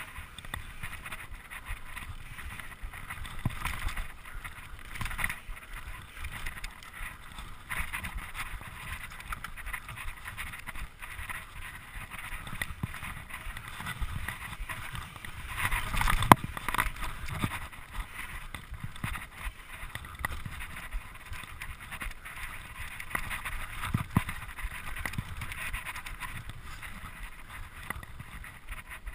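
Mountain bike ridden fast over dirt singletrack, heard from a camera on the rider: steady tyre noise on the dirt, the bike rattling over bumps, and wind on the microphone. A sharp, louder knock comes about 16 seconds in as the bike takes a hard bump.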